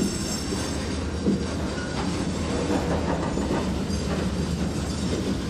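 Diesel freight locomotive backing slowly: a steady low engine rumble, with a few clicks of wheels on the rails.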